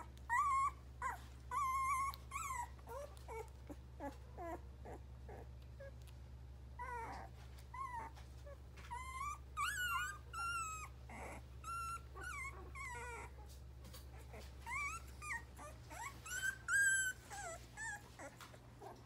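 Very young puppies whimpering and squeaking in their sleep: a string of short, high whines that bend in pitch. The calls are loudest around the middle and again near the end.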